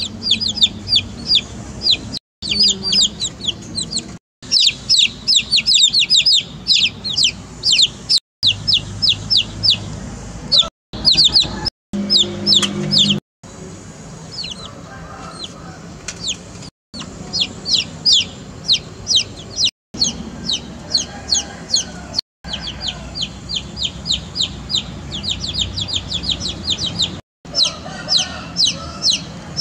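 A group of baby chicks peeping nonstop: shrill, quickly falling peeps, several a second, overlapping one another. The sound drops out briefly several times.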